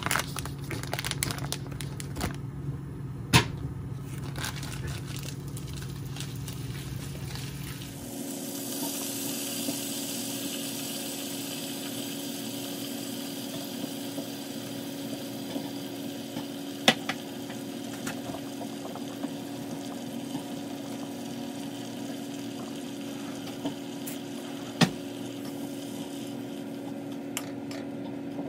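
Scattered clicks and a sharp knock of cookware being handled. About eight seconds in, the sound changes suddenly to the steady bubbling of liquid cooking in a pot on the stove, with a couple of sharp clinks.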